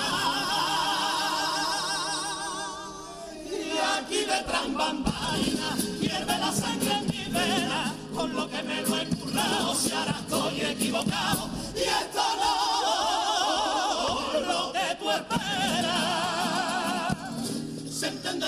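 Carnival comparsa chorus of men singing together in harmony, with strong vibrato. After a short lull about three seconds in, sharp percussion strikes join the singing.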